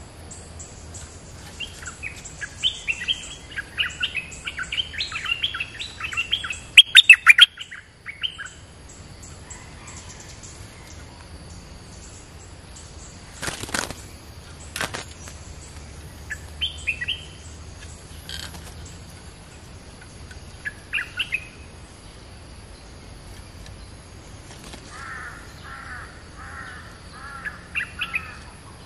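Stripe-throated bulbuls singing in quick, bubbling phrases, thick for the first several seconds and then in short bursts with gaps. A few loud sharp clicks about seven seconds in and two more clicks midway, over a steady high insect buzz.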